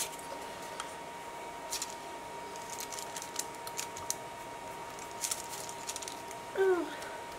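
Faint rustling of paper and a few small taps and clicks as a small paintbrush dabs decoupage glue onto torn paper strips pressed flat by hand. Near the end there is one short falling pitched sound, the loudest moment.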